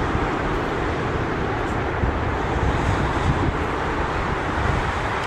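Steady jet engine noise from a four-engine Airbus A340 climbing away after takeoff.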